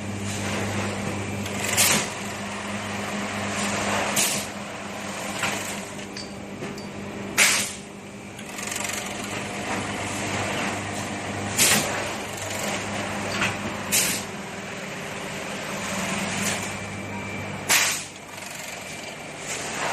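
Feed-mill packing-line machinery running with a steady hum, broken every two to four seconds by short, sharp hissing bursts.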